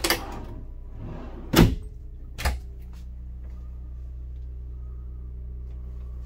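Wooden wardrobe drawer and cabinet doors being opened by hand: a click at the start, a loud knock about a second and a half in and a lighter one a second later, over a steady low hum.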